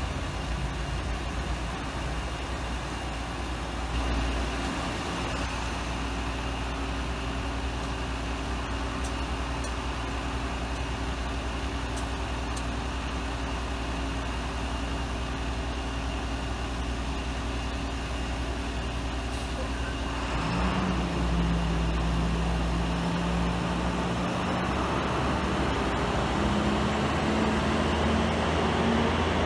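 Delivery box truck's engine idling with a steady hum, then pulling away about two-thirds of the way through, its engine note rising as it picks up.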